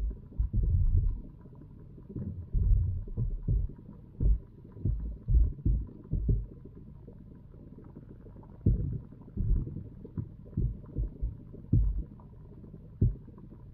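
Muffled low thumps and rumbling from a camera submerged in a pond: water moving against the waterproof housing. They come in irregular clusters over a faint steady hum.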